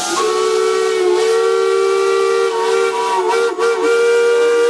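Steam whistles fed from a steam plant's line blowing a loud, steady multi-note chord, with shorter whistle notes sliding up and down in pitch as they are opened and closed. The chord falters briefly about three and a half seconds in, then sounds again.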